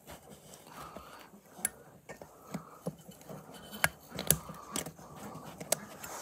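Scattered sharp metallic clicks and clinks as a retaining ring is worked into an ATV CV axle joint during reassembly, the loudest about four seconds in.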